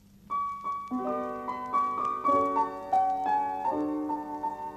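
Keyboard introduction to a hymn tune. A few single notes begin a moment in, followed by sustained chords.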